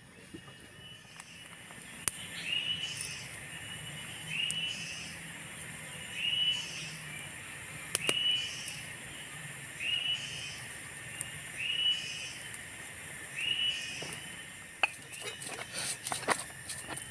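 Forest ambience: cicadas droning high and steady while an animal repeats a short whistled call about every two seconds. Near the end, a blade taps on a stone mortar as shallots are sliced.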